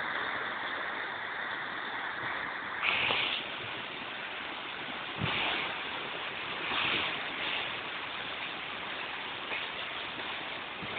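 Flood-swollen, muddy stream rushing steadily. A few brief louder bumps come through about three, five and seven seconds in.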